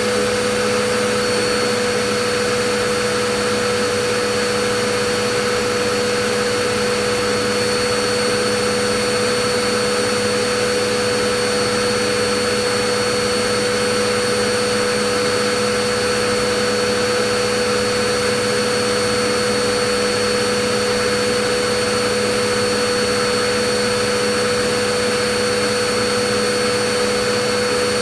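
Vacuum cleaner running steadily: a constant rushing noise of air with a steady motor whine, unchanging throughout.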